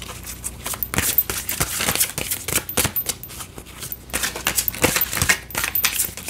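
A small deck of glossy oracle cards being shuffled by hand: a quick, irregular run of short card clicks and taps.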